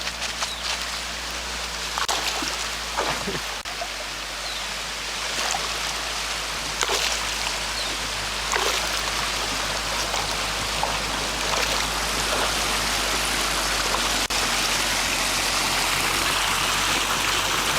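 River water rushing and splashing as a 4x4 fords the river, with a steady low engine hum beneath. The water noise grows a little louder toward the end.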